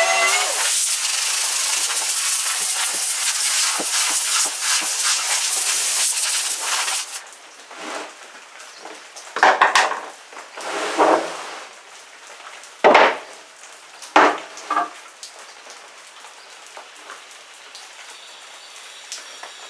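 A loud, even hiss that cuts off abruptly about seven seconds in, followed by several scattered sharp knocks and clunks of wooden boards being handled.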